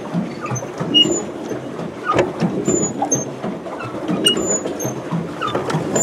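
Pedal boat's drive mechanism clattering steadily while being pedaled, with short high squeaks recurring about every second or so from its rusty, squeaky moving parts.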